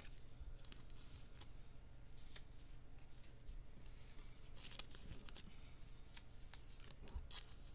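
Faint handling of trading cards and plastic card holders: light clicks and short rustling slides, two of them a little louder near the middle and near the end, over a low steady hum.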